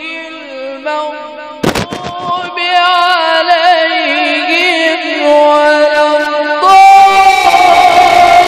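Male qari reciting the Quran in the melodic tilawat style through a handheld microphone, drawing out long, ornamented notes with a wavering pitch. There is a sharp knock about two seconds in, and a louder held note near the end.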